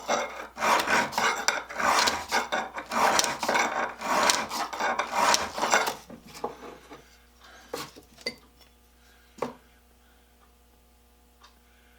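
Hand file rasping back and forth on the steel jaw of an antique adjustable wrench, about two strokes a second, taking off a large burr inside the jaw opening. The filing stops about halfway through, leaving a few light taps and clicks of metal being handled.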